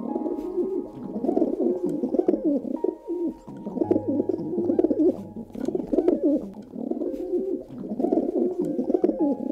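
White dove cooing: a series of low, wavering coos, one after another with only short breaks.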